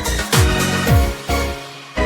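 Electronic background music with a steady kick-drum beat that drops away briefly near the end.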